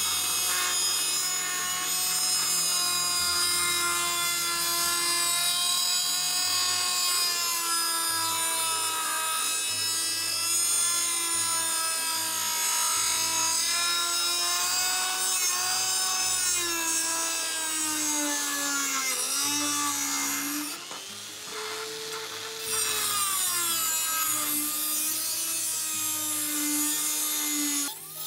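Rotary tool with a small cut-off disc grinding through the thin diecast metal panel of a model car, cutting out a rusted patch. It gives a steady whine whose pitch wavers and sags as the disc bites. About three-quarters of the way through it drops quieter and lower for a second or two, then picks up again.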